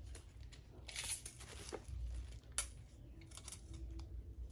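Quiet handling noise from a retractable tape measure being drawn out and laid along a knife: scattered light clicks and brief rustles.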